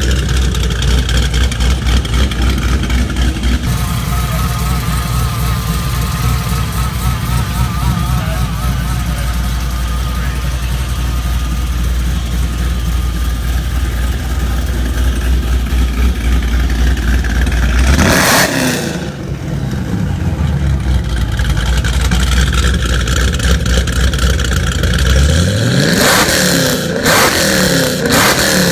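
Chevrolet Camaro engine idling with a steady low rumble, revved up and let back down briefly about two-thirds of the way through and again near the end.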